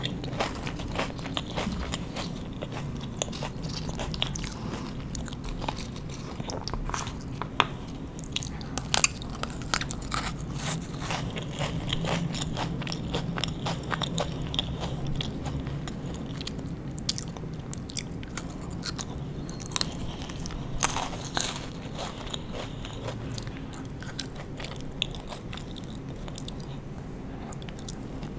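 Close-miked eating of crunchy sweets: irregular crisp bites and crunches with chewing in between, a few sharper bites in the middle.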